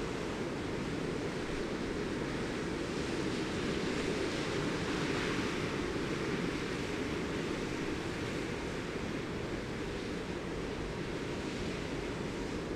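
Steady wind and water noise, with no distinct engine or horn standing out, swelling a little in the middle.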